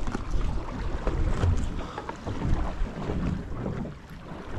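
Wind gusting across the microphone on a small boat out on open ocean, with water slapping and sloshing against the hull in a heavy swell. The sound is uneven, rising and falling with the gusts.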